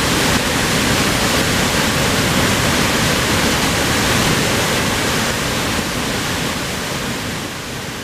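Karst spring in full flood gushing from the rock as a white-water torrent: a loud, steady rush of water that slowly fades over the last few seconds.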